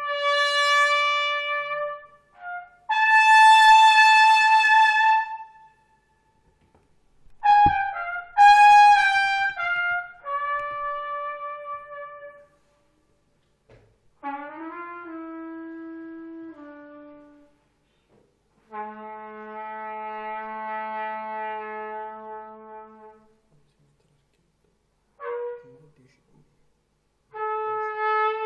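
Solo trumpet playing slow, unaccompanied phrases: a string of held notes, each one to four seconds long, separated by short silences. The first notes are loud and high; about halfway through, the line drops to lower, softer notes.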